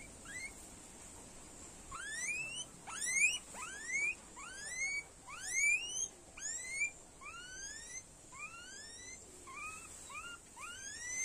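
Guinea pig squealing as it is held down by hand: a rapid run of short, whistle-like squeals, each rising in pitch, about one or two a second, starting in earnest about two seconds in.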